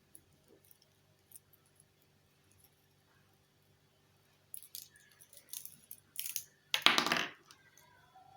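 Small kit parts and jumper wires being handled: scattered faint clicks, then a run of louder clinks and rattles in the second half, loudest about seven seconds in.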